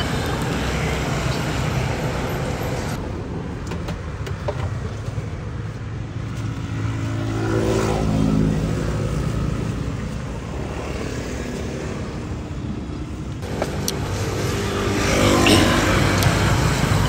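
Road traffic: a steady low rumble with a vehicle engine passing about eight seconds in, its pitch rising and then falling, and another passing near the end.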